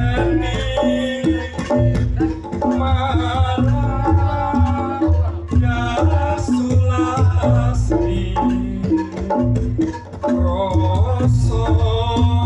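Reog Ponorogo gamelan music played loud: drums and struck bass notes keep up a driving rhythm under a wavering melody line.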